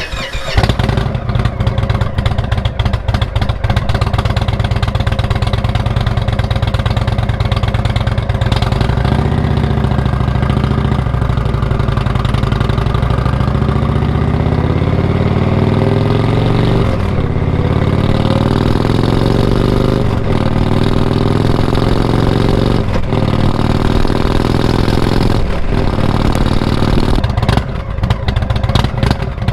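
Exhaust note of a 2016 Indian Springfield's Thunder Stroke 111 V-twin, running Stage 2 cams and Thunder Works 111 slash-cut pipes, under way. The engine speed rises and falls repeatedly, with several short dips in the second half.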